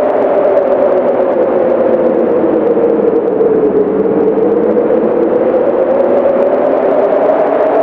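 Wind howling steadily, a hollow whistling tone over a rushing noise; the pitch sinks slowly over the first few seconds and rises again toward the end.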